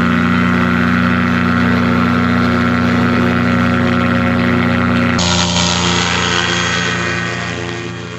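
Self-launching glider's pylon-mounted engine and propeller running steadily for the takeoff run, heard close from the cockpit. About five seconds in, the same engine is heard from beside the runway, fading toward the end.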